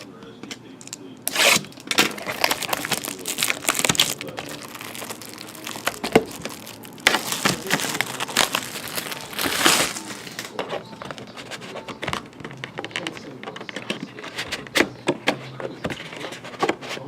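Plastic shrink-wrap being torn off a sealed hockey card box and crinkled, in two spells of rustling, followed by scattered clicks and knocks of cardboard being handled as the box is opened.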